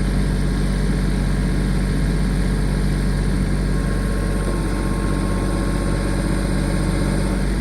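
Tractor engine running steadily at a constant speed, a loud, even drone.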